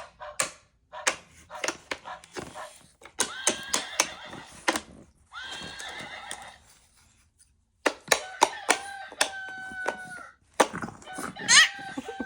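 Horse neighing sounds among many sharp clicks, with a gap about seven seconds in.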